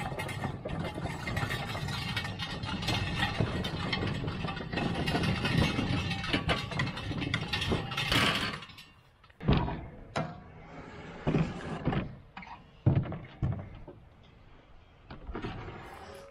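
Steel-rimmed wheels of a small wooden hay wagon rolling and rattling over pavement as the wagon is pulled by hand, for about eight seconds. After it stops, a series of separate knocks and bumps.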